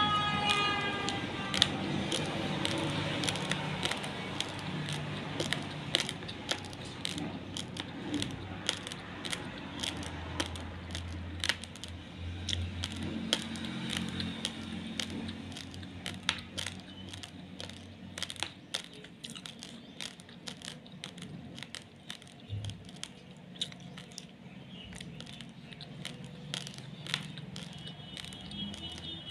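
Raw basmati rice grains crunching and crackling in many sharp, irregular clicks, dense at first and thinning out over the second half. A short falling tone sounds at the very start.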